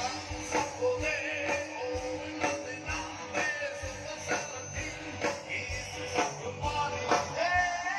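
Live rock band playing: a drum kit keeps a steady beat of about two hits a second under electric guitars and a sliding melody line.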